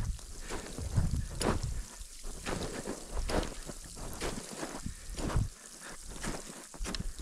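Footsteps crunching on snow during a descent, an irregular stroke every half second to second, with wind buffeting the microphone.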